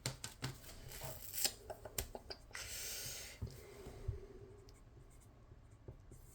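Paper banknotes being handled: light taps and rustles of the bills, with a short sliding rustle about two and a half seconds in, then quieter.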